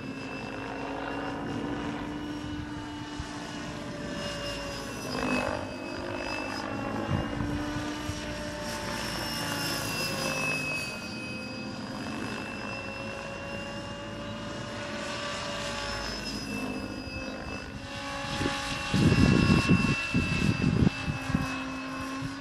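Diabolo 700 radio-controlled helicopter flying overhead, its motor and rotor whine slowly rising and falling in pitch as it manoeuvres. Near the end, a few seconds of loud low buffeting on the microphone.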